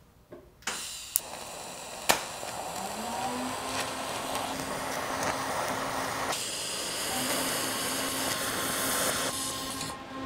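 Electric welding arc hissing steadily while a steel handle rod is welded onto a stacked Damascus billet, with a couple of sharp clicks in the first two seconds.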